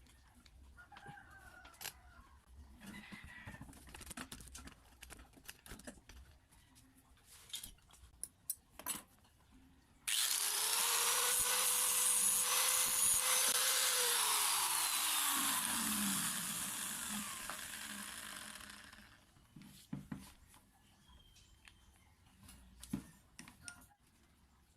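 Angle grinder motor switched on abruptly and running at steady high speed with a loud whine. After about five seconds it is switched off and winds down, its pitch falling. Light clicks and handling knocks come before and after.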